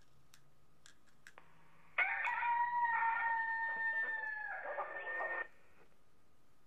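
A customizable electronic moo box playing a recorded rooster crow through its small speaker. The crow, about three and a half seconds long, starts suddenly about two seconds in and cuts off abruptly. A few faint clicks come before it.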